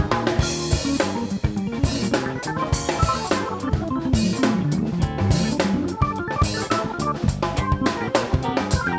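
Funk band playing live, the drum kit to the fore with kick, snare and cymbals on a steady groove, over a moving bass line.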